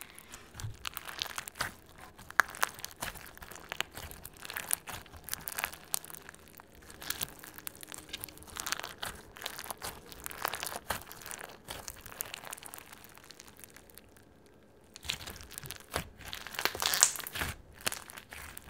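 Crunchy fishbowl slime with holographic plastic fragments being squeezed and pressed by hand, giving a dense stream of crisp crackles and crunches. It goes nearly quiet about fourteen seconds in, then a louder run of crunching follows near the end.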